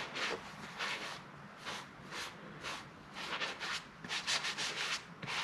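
A sponge rubbing boiled linseed oil into a hand-carved elm bowl: repeated wiping strokes, with a quicker run of strokes a little past the middle.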